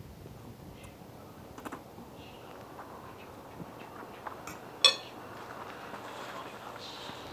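Cutlery on a dish while eating: a few faint clicks, then one sharp metallic clink of a fork on a plate about five seconds in.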